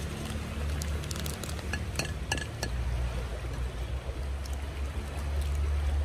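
Toasted breadcrumbs poured from a plastic bag into a glass dish. Sharp clicks and a short ringing clink on glass come between about one and two and a half seconds in. A steady low rumble runs underneath.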